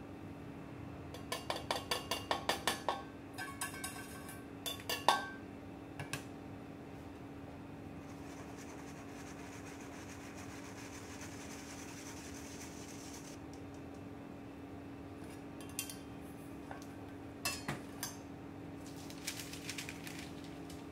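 A wire whisk and stainless steel bowl clinking against a metal mesh sieve while flour is sifted: a quick run of metallic taps about two seconds in, a few single clinks after it, then a soft scratchy hiss of the whisk pushing flour through the mesh, and more light taps near the end. A faint steady hum runs underneath.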